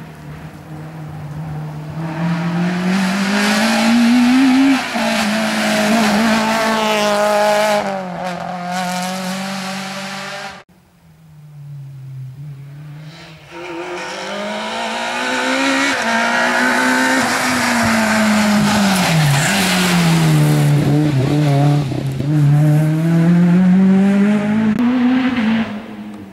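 Rally car engines at high revs on a stage, the pitch climbing and then dropping again and again as the cars change gear and lift off for corners. The first car cuts off abruptly about ten seconds in, then a second car builds up louder as it approaches, its engine dipping and rising again.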